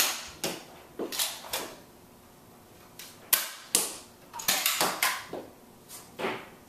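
Nerf pistols being handled and primed: about a dozen sharp plastic clicks and clacks at irregular intervals, some in quick clusters.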